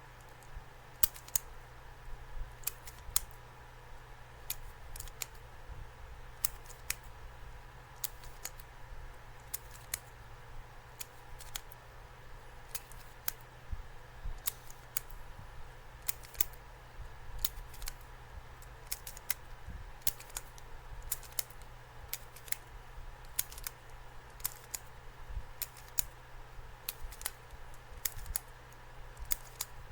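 A fidget spinner being handled and spun: irregular sharp clicks and snaps, about one or two a second, over a faint steady hum.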